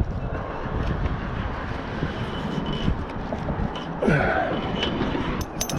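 Steady rumble of highway traffic with wind on the microphone; about four seconds in a short breathy gasp, and a few sharp clicks near the end.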